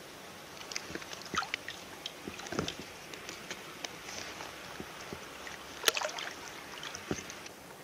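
Small splashes and sloshing water around a landing net held at the stream surface as a brown trout is unhooked and let go, with one louder slap about six seconds in.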